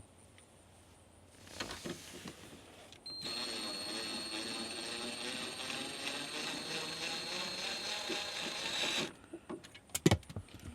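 Power drill running steadily for about six seconds, a constant motor whine that starts about three seconds in and cuts off suddenly, followed by a few sharp clicks and knocks near the end.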